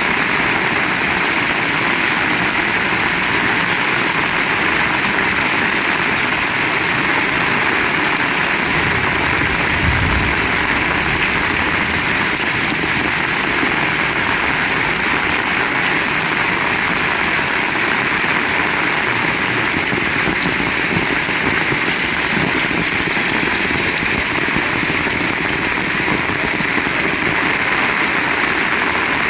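Heavy rain pouring down in a steady, loud hiss, with a brief low thump about ten seconds in.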